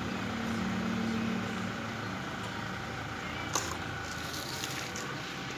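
Steady background hum of a motor vehicle running, with a faint low tone that fades after about two seconds, and a single sharp click about three and a half seconds in.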